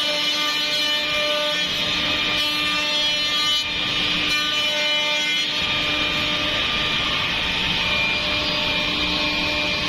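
Ten-head CNC mortise milling machine cutting into wooden rails. The spindles keep up a steady whine over the hiss of the cutters chipping wood.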